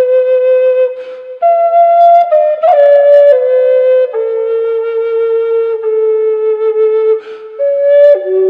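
Native American style flute in G4 (a Spirit Bird flute of figured maple) playing a slow melody of long held notes that step from one pitch to the next, with reverb and delay added. The melody has two brief breaks for breath, about a second in and near the end.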